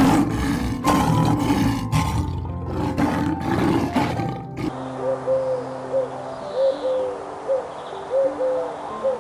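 A wild animal roaring and growling loudly in rough pulses for the first four and a half seconds, over background music. After that the music carries on with a run of about ten short, arching calls.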